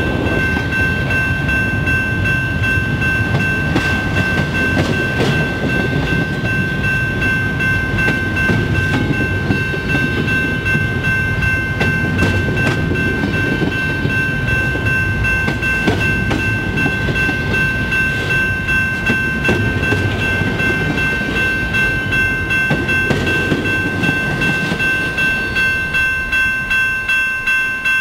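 Freight train of intermodal well cars rolling past close by, a steady rumble with wheels clicking over a bolted rail joint and a constant high-pitched ringing tone. Toward the end the rumble breaks into a pulsing clack as the last cars go by.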